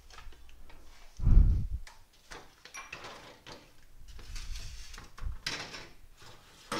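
Kitchen handling sounds: a dull thump about a second in, then scattered soft knocks, rustles and clicks, like drawers or cupboard doors and containers being moved.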